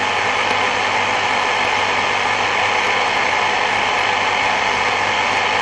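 CB radio receiver hissing with open squelch: steady band static with a faint hum and no station coming through.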